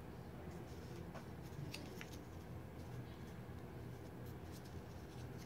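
Faint paper rustling with small scattered ticks as fingers handle a small folded origami crane, over a steady low hum.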